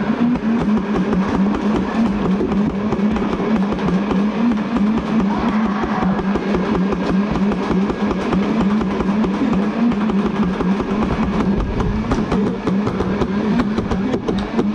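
Nerf Rival blasters firing full-auto at close range: a steady motor hum under a fast, continuous clatter of foam rounds being fired and striking.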